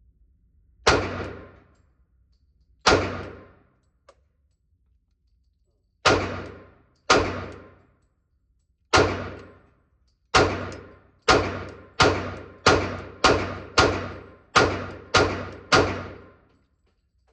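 Gunshots from a handgun or rifle being fired, fourteen shots in all, each with a short echoing tail. The first few come a couple of seconds apart; the rest follow in quicker succession, about one and a half a second, until the firing stops.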